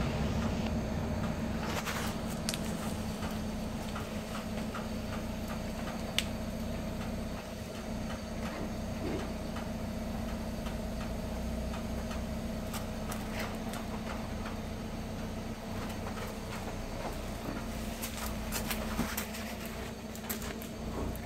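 Steady low mechanical hum with a constant drone, with scattered faint clicks and rustles over it.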